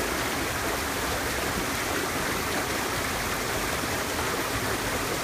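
Mountain stream rushing over rocks in a valley: a steady, even rush of flowing water.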